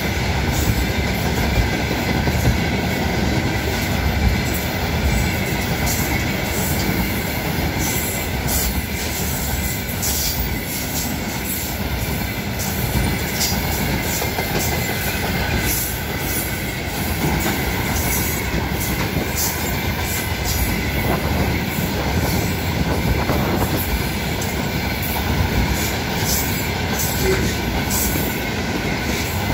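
Container flat wagons of a freight train rolling past: a steady rumble of steel wheels on the rails, with scattered sharp high-pitched clicks and squeals from the wheels.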